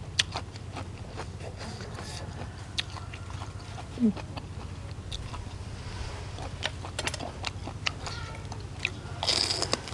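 Close-miked eating: wet chewing and crunching of spicy papaya salad with paddy-field snails and crisp bitter gourd, with many small mouth clicks and smacks and a short sucking slurp near the end.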